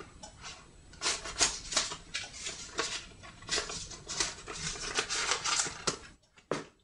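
Banknotes being counted out by hand: a quick run of crisp rustling flicks, about three a second, stopping about six seconds in.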